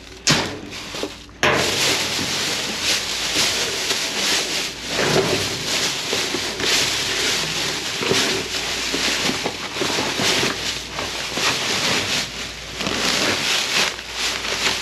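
Plastic trash bags rustling and crinkling as gloved hands rummage through them and pull them open. After a brief crackle just after the start, the rustling sets in about a second and a half in and keeps on.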